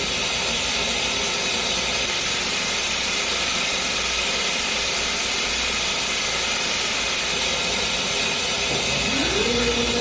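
Steady rushing hiss of a laser engraving machine running while it etches markings into a black plastic dial. Near the end a motor hum rises, holds and falls back.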